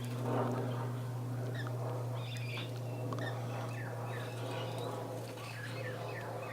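Birds at a seed feeder calling with many short chirps, some sweeping quickly down in pitch, over a steady low hum.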